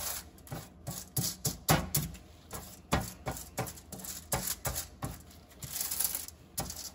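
Aluminium foil on a baking tray crinkling and scraping under repeated strokes of a stick of butter being rubbed over it to grease the tray. The strokes come in an uneven run of about three a second.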